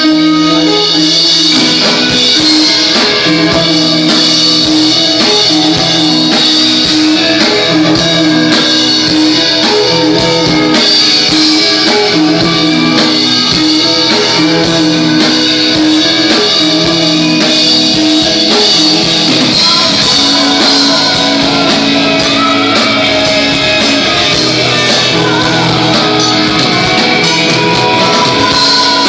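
A rock band playing a song live, with guitars and a drum kit, and a singing voice. The music runs on steadily and loudly without a break.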